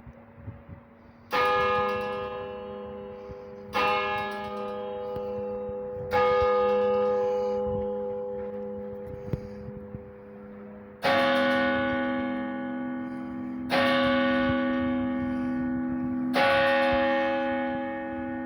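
Stadtkirche Meiningen's church bells striking single strokes, each left to ring out and fade: three strokes about two and a half seconds apart, then after a pause three louder strokes on a second bell of a different pitch. This is the tower clock striking three o'clock.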